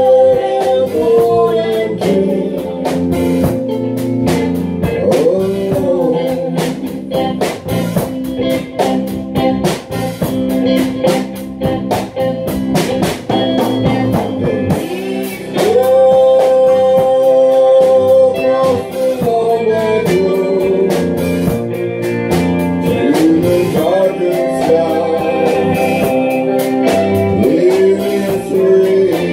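A voice singing to guitar accompaniment, with long, wavering held notes over steady strummed chords.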